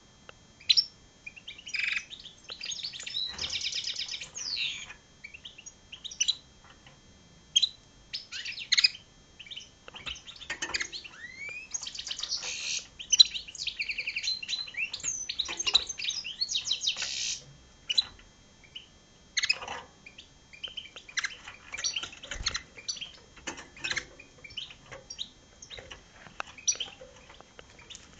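A European goldfinch × red siskin hybrid singing: high twittering song of quick chirps, sweeps and fast trills, in phrases broken by short pauses.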